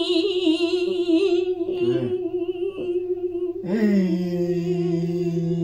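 Two voices holding a long sung note with a slight wobble: a woman's voice on a higher note throughout, joined about three and a half seconds in by a man's voice on a lower note.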